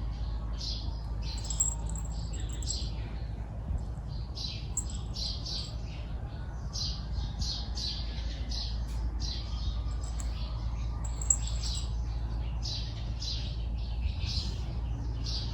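A dwarf cat scratching its claws on concrete: a long run of short rasping scrape strokes, two or three a second, with brief pauses between runs.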